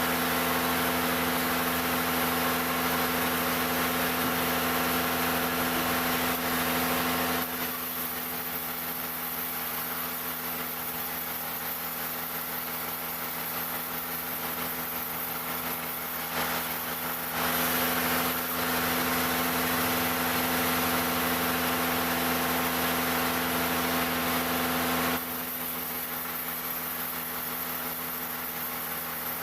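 Engine-driven sawmill running at a steady pitch. Its noise turns louder and harsher in two long stretches, from the start to about 7 seconds in and again from about 17 to 25 seconds in, as the blade cuts through jackfruit wood.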